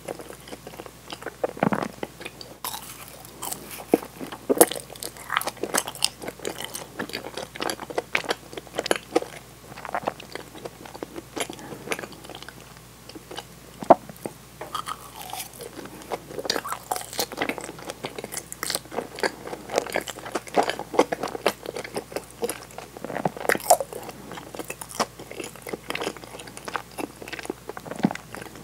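Close-miked biting and chewing of butter-fried daifuku mochi, with irregular crunches from the browned crust. One sharp crunch about halfway through stands out as the loudest.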